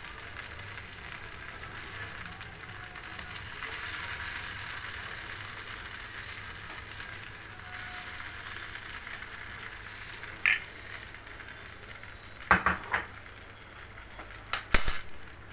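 Dal-and-rice dosa batter sizzling steadily in hot oil in a frying pan, with a metal spoon clinking sharply against the pan a few times in the last five seconds.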